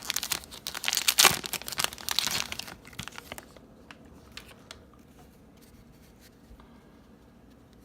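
Baseball card pack wrapper being torn open and crinkled, a dense crackling for the first three seconds or so. After that it drops to a few faint clicks.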